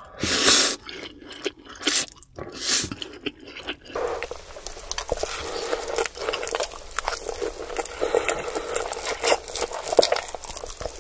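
Close-miked slurping and chewing of Indomie goreng instant fried noodles: a few loud slurps in the first three seconds, then steady wet chewing with many small smacks and clicks.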